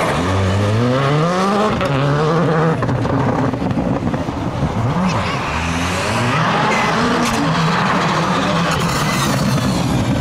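Škoda Fabia R5 rally car's 1.6-litre turbocharged four-cylinder engine revving hard as it drives a tight stage section. Its pitch rises through the gears and drops several times, with a few sharp pops along the way.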